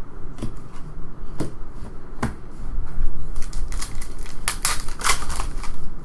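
Trading cards being handled and flipped through: a few separate sharp clicks, then a quicker run of them in the second half.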